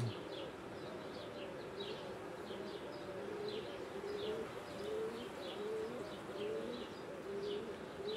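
Honeybees buzzing around an opened hive: a wavering hum of many bees flying close, its pitch bending up and down as they pass. Short, high falling chirps repeat a few times a second throughout.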